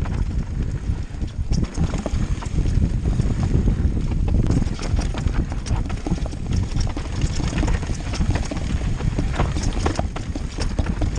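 Mountain bike riding fast down a dirt singletrack: a steady wind rumble on the microphone, with constant clattering and rattling of the bike over bumps.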